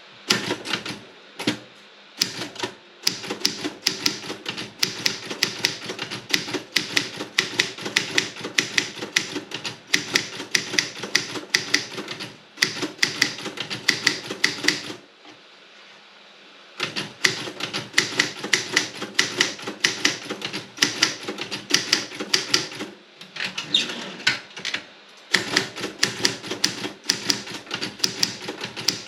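Robotron 24 typewriter being typed on: quick runs of sharp keystrokes, several a second, broken by short pauses about two seconds in, just past halfway, and again about three quarters of the way through.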